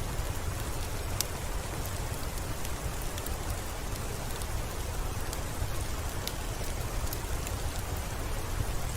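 Steady rain falling, with scattered sharp drop ticks over an even hiss and a low steady rumble underneath.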